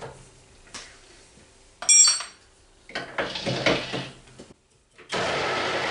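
A steel toolholder clinks sharply against the lathe's toolpost about two seconds in, followed by handling clatter. About five seconds in the metal lathe starts up and its spindle runs steadily.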